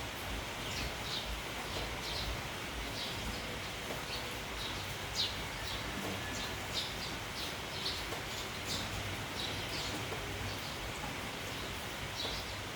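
A flock of sparrows chirping in many short, scattered high notes over a steady hiss of rain and wind.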